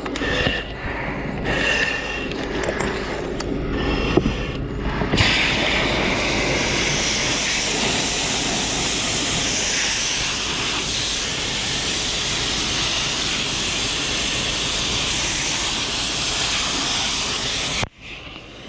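Firefighting hose nozzle spraying a jet of water onto a burnt-out truck cab: a steady, even hiss that starts suddenly about five seconds in and cuts off abruptly near the end.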